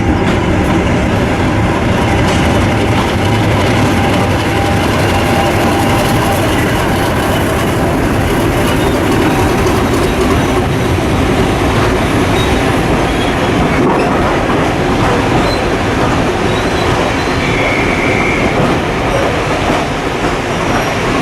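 BR Class 50 diesel locomotive 50049 Defiance, with its English Electric 16-cylinder engine running, moving with its train, with clatter of wheels over the rail joints. A brief higher squeal comes near the end.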